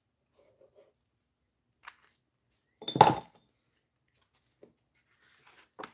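A plastic glue dispenser is set down on the craft mat with one short knock about halfway through, among faint rustles of cardstock being handled.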